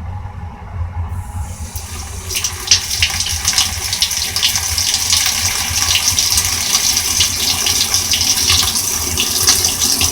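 Water turned on and rushing out hard, with spattering and splashing, building up about a second in and then running strongly. It is water being let through a plastic-bag-and-hot-glue patch on a broken washing machine water fitting to test the repair. A steady low hum runs underneath.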